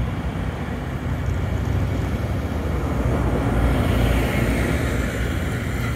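Steady low rumble of city traffic, swelling slightly about four seconds in.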